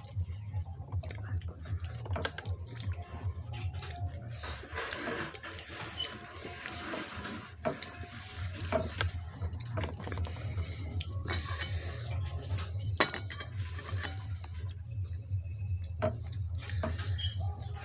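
Close-up wet eating sounds: mouthfuls of thin, watery khichuri and fried potato being chewed and slurped, with small clicks against the plate and a couple of sharper clinks, over a steady low hum.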